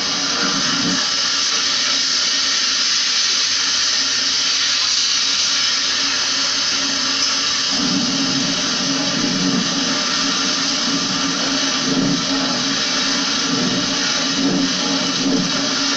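Pressure washer spraying a window-type air conditioner: a steady hiss of water hitting the coil and housing, with a motor hum underneath.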